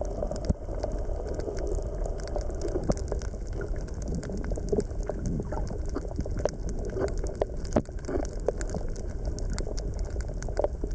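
Underwater reef ambience picked up by a camera below the surface: a steady low rumble of moving water with many scattered sharp clicks and crackles.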